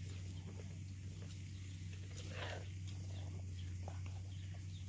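A mother dog licking and chewing food from a hand, heard as faint scattered clicks over a steady low hum. A brief, louder noisy sound comes about halfway through.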